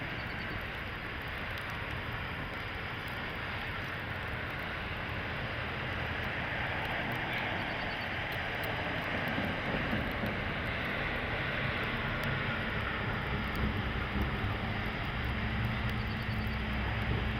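Steady road and engine noise of a vehicle driving on an icy, sleet-covered highway, slowly growing louder, with a low hum coming in near the end.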